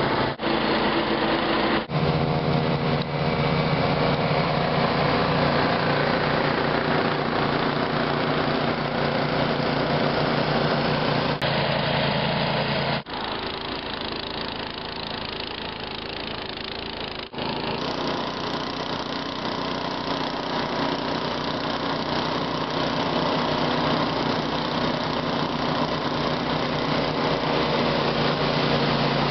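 Riding-mower engine running steadily under load while it drives a Craftsman 42-inch two-stage snow blower attachment that is throwing snow. The sound drops quieter for about four seconds past the middle, then comes back up.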